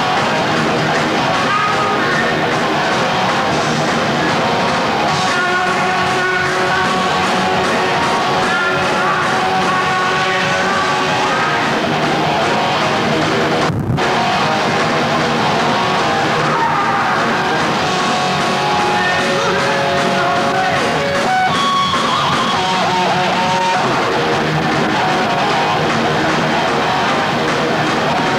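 Heavy metal band playing live: distorted electric guitars, bass and drums in a dense, loud wall of sound. About halfway through, the high end drops out for a moment.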